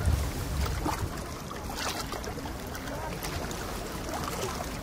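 Seaside harbour ambience: a steady low rumble and a wash of sea and air noise, with faint far-off voices.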